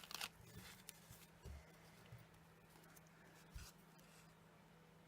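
Faint rustles and a few light taps as hands handle small pieces of cut foam tape and card, over a low steady hum.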